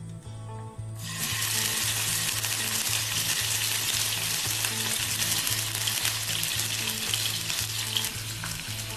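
Raw bone-in chicken pieces going into lightly heated cooking oil in a frying pan: the oil starts sizzling suddenly about a second in and keeps up a steady frying sizzle.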